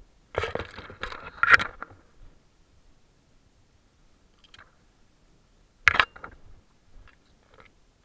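Tall grass brushing and scraping against a body-worn camera and a gel blaster as it is pushed through, in irregular bursts of rustling and sharp clicks. The bursts are loudest during the first two seconds and again about six seconds in.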